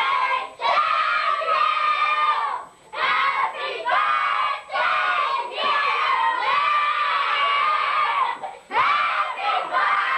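A group of children shouting and yelling over one another in high, drawn-out voices, in several loud bursts with short breaks between.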